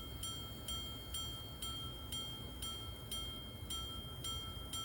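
The repeater of an early-1800s quarter-repeater pocket watch striking the hours. Its hammer rings out an even run of clear, bell-like strikes about twice a second, all at the same pitch: the twelve strokes for noon.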